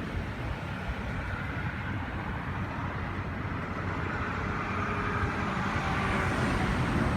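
Steady road-traffic rumble that grows slightly louder toward the end.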